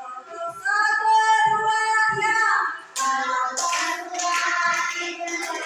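A class of young children singing together in unison, holding drawn-out notes.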